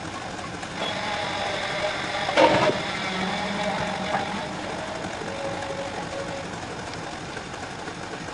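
Machinery of a Dairymaster swing-over milking parlour running steadily. There is one loud clunk about two and a half seconds in, as the hanging milking equipment is handled.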